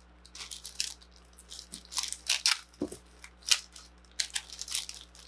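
Plastic bag around a model-kit sprue crinkling and rustling in irregular crackles as it is handled, over a faint steady low hum.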